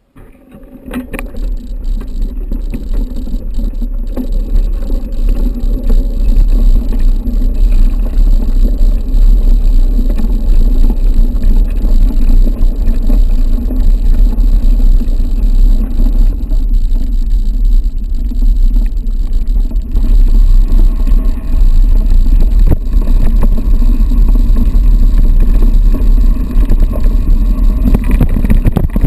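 Mountain bike riding down a trail of loose stones: heavy wind rush on the action camera's microphone mixed with tyre and frame noise. It builds up over the first few seconds and then stays loud and steady.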